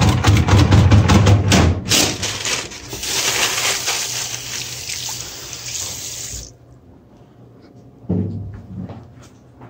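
Restroom sink tap running, water splashing into the basin at first, then a steady rush that cuts off suddenly about six and a half seconds in. A paper towel rustles near the end.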